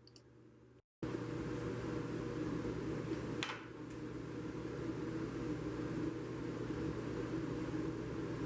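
Woodshop machinery running steadily: a constant motor hum with a broad rushing noise that starts abruptly about a second in.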